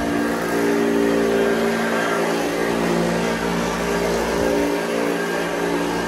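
Hoover Junior Exclusive U1206 upright vacuum cleaner running as it is pushed across carpet: a steady motor whine over a constant rush of air.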